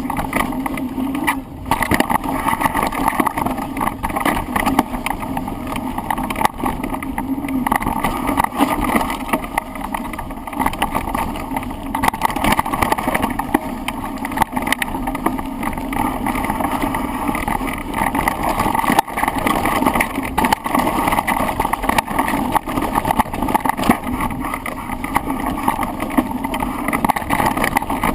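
A mountain bike ridden down a rough trail, picked up by a camera clamped to the handlebars: steady tyre and wind noise with constant rattling and many sharp knocks as the bike goes over bumps.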